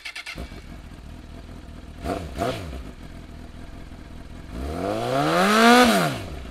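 Motorcycle engine idling with a low rumble, blipped twice about two seconds in, then revved up and back down near the end.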